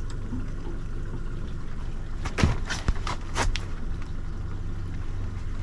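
Steady low hum of an idling boat engine, with a few sharp knocks and clatters in the middle.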